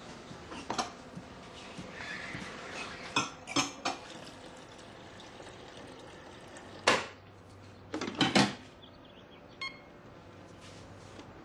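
Kitchen clatter of dishes, cups and a coffee carafe being handled and set down on a counter: a string of sharp knocks and clinks, the loudest about seven seconds in and a quick cluster just after eight seconds.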